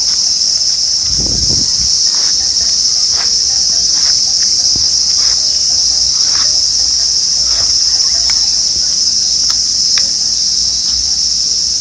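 Steady, loud, high-pitched insect chorus that never lets up, with a few faint taps and splashes from small feet stepping in a shallow puddle.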